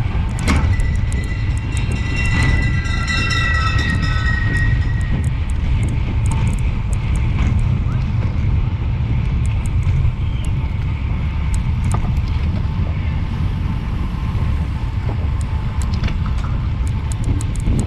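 Wind rushing over an action camera's microphone as a road bike races along at about 40 km/h, a loud steady low rumble mixed with tyre noise on the path. A few held high tones ring out over it for the first few seconds.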